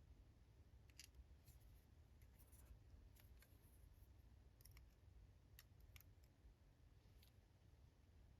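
Near silence with faint, scattered small clicks and ticks, about a dozen in all: tiny pin-tumbler driver pins and springs being handled as a laminated padlock's core is taken apart.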